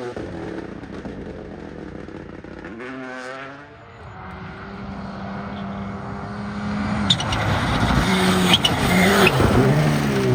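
Rally car engines on a special stage: one car's engine fades away at first, then the next car approaches, its engine note growing louder and dipping in pitch with gear changes, with several sharp cracks in the last few seconds.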